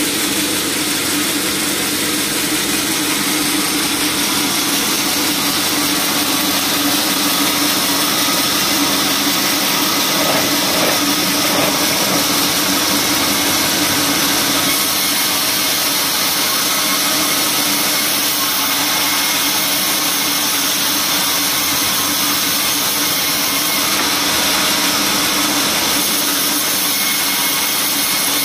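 Band sawmill running steadily, its blade cutting lengthwise through a teak log: a steady hum under a loud, even hiss.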